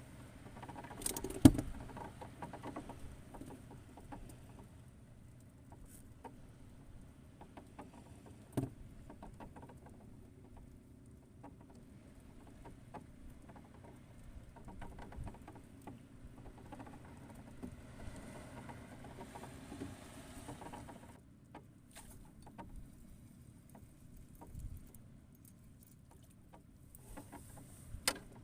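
Faint patter and handling noises over a low background, broken by a few sharp knocks, the loudest about a second and a half in and another near the middle.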